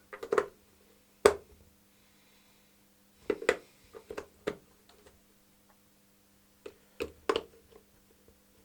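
Spektrum DX6i transmitter's newly fitted scroll-menu button and controls being clicked to test them: sharp plastic clicks, some single and some in quick runs of two or three, over a faint steady hum.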